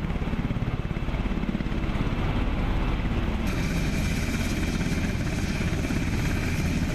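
H-60 Black Hawk-type helicopter landing and running on the ground: steady, rapid rotor chop, joined about halfway through by a steady high turbine whine.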